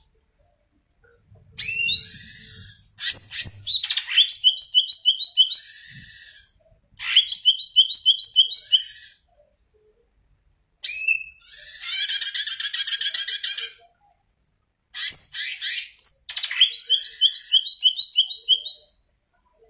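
Cucak ijo (green leafbird) singing in five separate phrases, each a few seconds long, mixing sharp whistled notes with fast runs of repeated chips about ten a second.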